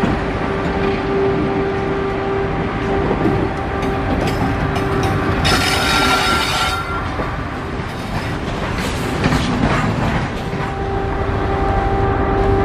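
WCAM-3 electric locomotive running, its DC traction motor blowers giving a steady whine. A horn sounds once for about a second, a little past the middle.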